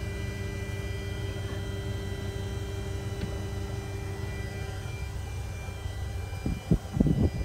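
A steady, low mechanical hum with a faint held tone that fades out about five seconds in, and a few short knocks near the end.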